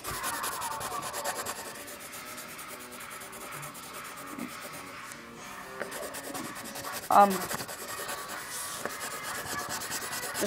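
Colored pencil scratching on paper in rapid back-and-forth shading strokes, coloring in a solid area. A brief voice sound breaks in about seven seconds in.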